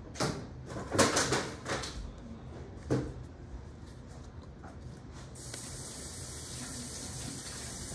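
Several short crinkling rustles from a foil trading-card booster pack and its cards being handled, the loudest about a second in. About five seconds in, a steady even hiss sets in.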